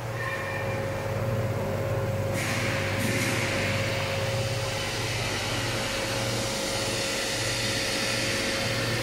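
Blast freezer's refrigeration unit running: a steady low hum from the compressor with a constant tone above it, joined about two and a half seconds in by a loud rushing hiss that carries on.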